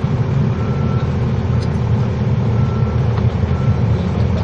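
Construction machinery engine running steadily, a low drone. A faint high beep sounds a few times.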